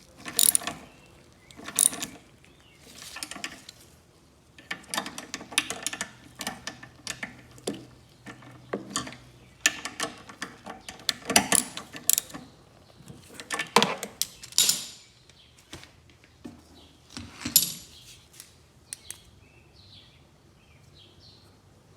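Ratchet wrench clicking in short runs as nuts are tightened, with pauses between the runs; the clicking stops about three-quarters of the way through.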